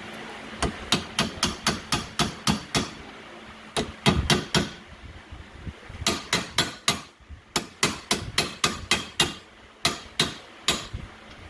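A hammer tapping a retaining pin back in to hold a replacement paw on a lock mortiser. There are runs of sharp, quick taps, about three or four a second, with short pauses between the runs.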